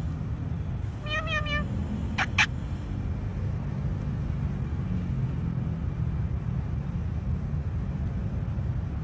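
A parrot mimicking a cat's meow once, a wavering pitched call about a second in, followed by two sharp short squeaks just after two seconds. A steady low hum runs underneath.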